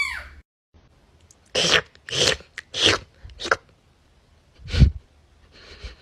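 A cat's high-pitched meow, one rising-and-falling call at the very start. Then a string of short, breathy, noisy bursts, about four in two seconds, and a louder, deeper burst about five seconds in.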